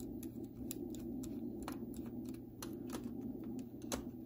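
Small screwdriver clicking irregularly against screws and metal parts as screws are taken out inside an opened laptop, over a steady low hum.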